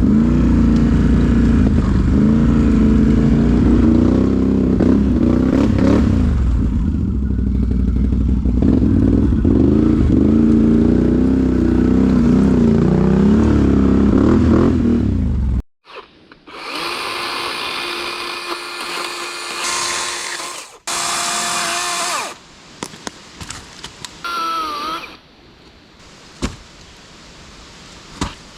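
ATV engine running under way, its pitch rising and falling with the throttle, then cutting out abruptly about sixteen seconds in. After that come several shorter spells of a high whirring motor sound with pauses between them.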